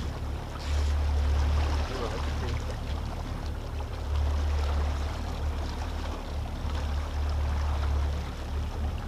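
Wind buffeting the microphone in gusts on a small trolling boat, over water washing along the hull. A faint steady hum from the boat's motor runs underneath.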